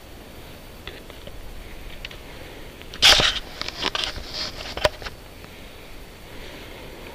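A sudden loud knock about three seconds in, followed by about two seconds of crackling and rustling with a few sharp snaps, as of movement through dry forest undergrowth, over a faint steady hiss.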